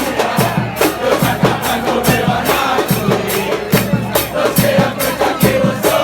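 Football supporters' crowd chanting in unison, backed by a steady, fast beat of bass drums and snares, as an Argentine hinchada sings in the stands.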